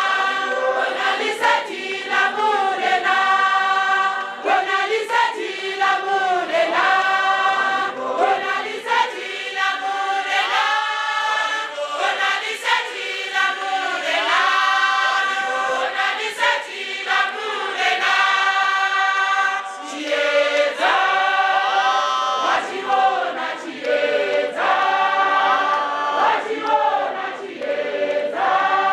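A large congregation of men and women singing a hymn together, many voices holding long notes and moving from phrase to phrase.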